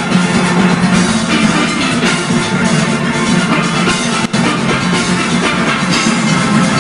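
A full steelband playing: many steel pans ringing out a fast, busy melody and chords over a drum kit and percussion keeping a driving beat.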